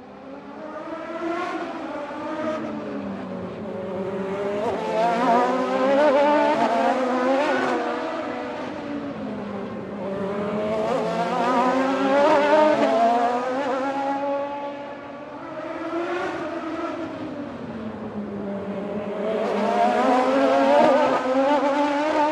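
Grand Prix racing car engines revving high at speed. The engine pitch dips and climbs again several times, with the sound swelling loud and easing off in waves.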